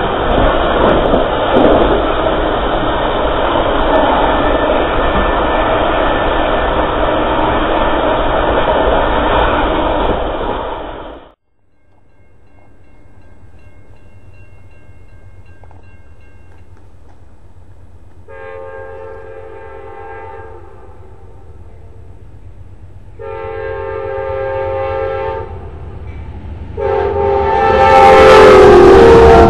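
Loud, steady rumble and wind noise of riding aboard a moving train, cutting off suddenly about eleven seconds in. Then an Amtrak P42 Genesis diesel locomotive sounds its chime horn in three long blasts as it approaches. The last blast is the loudest, with the train's rumble rising under it as it passes.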